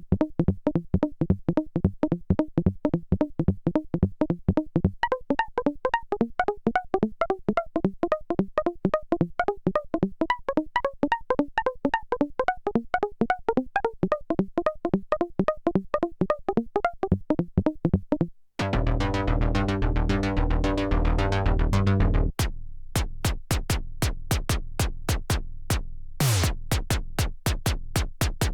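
Arturia MicroFreak synthesizer presets playing. First a fast sequenced pattern of short plucked notes, about six a second, runs until about 18 seconds in. After a brief break comes a dense, held chord for some four seconds, then rapid percussive notes with falling pitch, like a drum machine.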